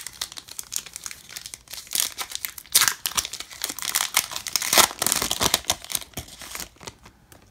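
Foil wrapper of a 2022 Topps Chrome Logofractor baseball card pack being torn open and peeled by hand: irregular crinkling and tearing, loudest about three and five seconds in, dying away near the end.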